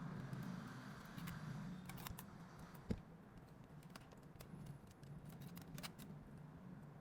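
Faint small clicks and taps of phone-repair tools and parts being handled on a bench, with one sharper knock about three seconds in, over a low steady hum.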